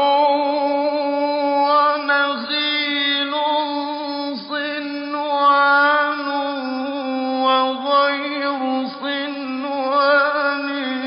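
A male reciter's solo voice chanting the Quran in a slow, melodic style. He draws out long, ornamented notes with a few brief dips between phrases.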